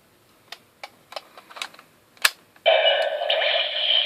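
Small plastic clicks as a Zyudenchi battery toy is handled and loaded into the Gabutyra de Carnival DX toy, then a sharp snap a little after two seconds. Just before three seconds in, the toy's small speaker bursts into a loud electronic sound effect.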